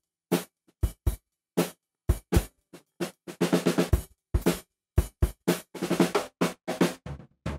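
Solo drum kit playing the song's intro: separate strikes with short silences between them, becoming busier from about halfway through.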